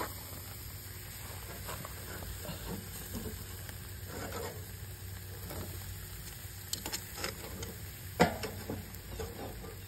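Bone-in steaks sizzling on a grate over hot charcoal: a steady hiss with scattered soft crackles and a sharper pop about eight seconds in.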